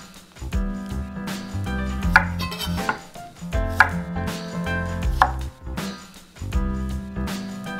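Chef's knife slicing an English cucumber on a wooden cutting board, giving a series of irregular knife taps against the board, with background music underneath.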